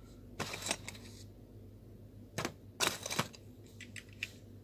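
Small plastic puzzle pieces clicking and snapping as they are pressed onto a toy car model, in short clusters of sharp clicks about half a second in and again around two and a half to three seconds in.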